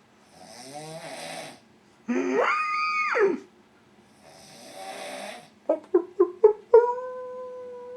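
A man snoring loudly. Loud pitched snores that rise and then fall in pitch alternate with breathy hisses. Near the end a quick run of about five short snorts leads into a long, steady droning note.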